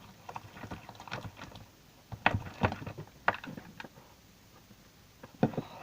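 Homemade glue-and-detergent slime, still sticky, being stirred in a container with a small utensil: irregular sticky clicks and squelches, busiest in the middle and again briefly near the end.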